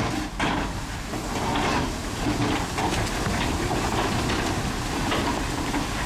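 Komatsu crawler bulldozer working: its diesel engine runs steadily under a continuous rattle and clatter of steel tracks and stone.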